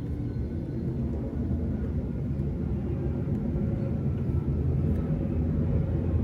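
Steady low rumble of an outdoor ambient background-noise recording, rising slightly in level.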